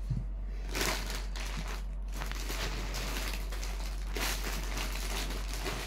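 Plastic packaging crinkling and rustling as it is handled, in uneven rustles starting about a second in, over a low steady hum.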